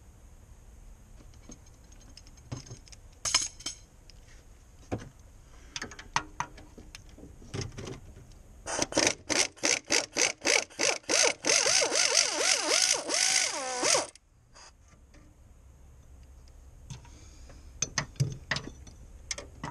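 Husky reactionless impact air ratchet on a long extension hammering at a bolt, first in quick separate bursts, then in a steady run of about five seconds that cuts off suddenly. A few sharp tool clicks come before it.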